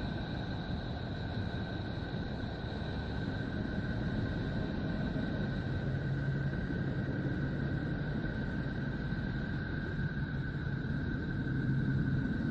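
Space sonification played as the sound of Neptune, electromagnetic signals converted into audible sound: a steady rumbling noise with two thin, unchanging high tones above it, joined by a low hum about halfway through.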